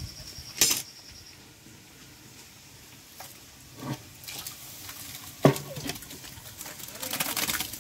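Ginger-garlic paste being tipped and scraped from a plastic bowl into a large cooking pot of raw mutton. There are a few sharp knocks of the bowl against the pot, the loudest just after the start and again past the middle, and a soft scraping rustle near the end.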